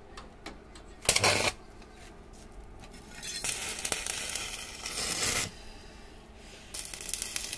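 Stick (arc) welding on a steel frame: the arc crackles and hisses in bursts. There is a short loud burst about a second in, a longer run from about three to five and a half seconds, and another starting near the end.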